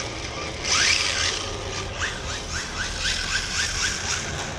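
Electric motor of a radio-controlled car whining up in short, quick throttle blips, about three or four a second, over a steady hiss.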